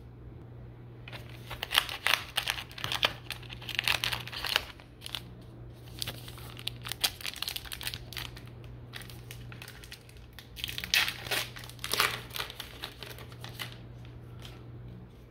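Plastic wrapper of a baseball card pack crinkling and tearing as the pack is opened, in three bursts of crackling separated by short pauses.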